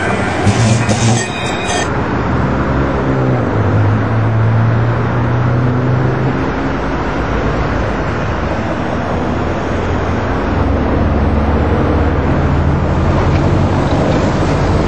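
A Luas light-rail tram, an Alstom Citadis, running past close by. About two seconds in the sound changes to steady street and tram running noise with a low hum, while a tram approaches along its tracks.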